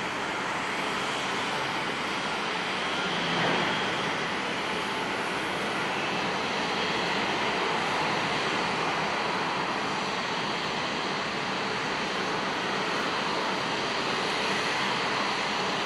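Jet engines of a Japan Airlines Boeing 737-800 (CFM56 turbofans) as it rolls down the runway: steady loud jet noise, with a brief swell about three seconds in.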